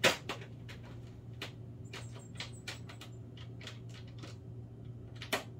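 Light clicks and taps of small hard items being handled on a tabletop, with a sharp click at the very start and another near the end, over a steady low hum.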